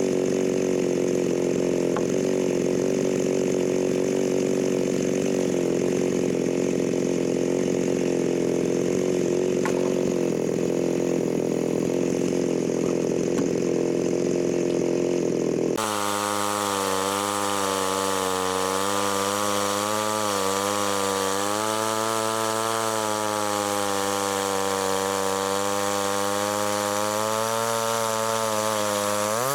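Chainsaw engine running steadily. About halfway through the sound changes abruptly, and the engine's pitch then wavers up and down.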